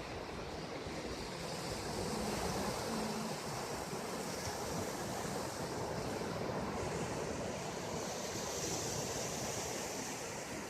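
North Sea waves washing in steadily, a continuous surging rush of surf with some wind on the microphone.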